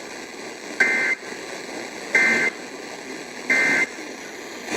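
Emergency Alert System end-of-message (EOM) data bursts: three short, identical bursts of high two-tone digital warble, about a second and a half apart, over a steady background hiss. They mark the end of a severe thunderstorm warning broadcast.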